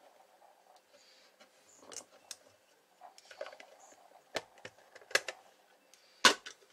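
Handling noise of a small CB amplifier's metal case being closed up: the cover scraping and sliding into place, with several sharp clicks and taps, the loudest near the end.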